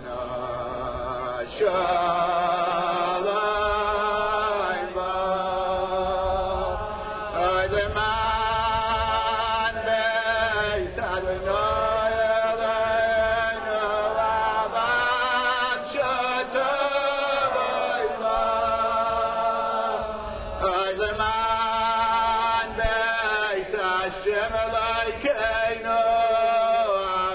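Slow Hebrew song sung in drawn-out, chant-like phrases: long held notes with a wavering vibrato and short breaks between phrases.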